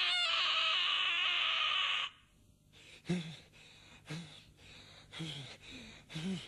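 A high, wavering scream that cuts off about two seconds in, then a young man's heavy panting breaths, about one a second, as after a fright.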